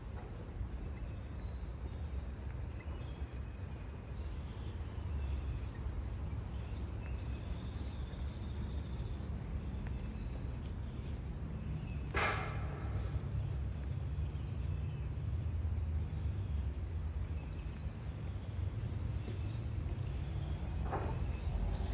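Woodland ambience: scattered faint bird chirps over a steady low rumble, with one sharper, louder sound about halfway through.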